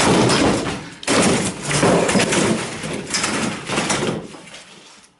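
Chairs banging and clattering loudly, with one crash at the start and another about a second in, the noise tailing off before cutting out.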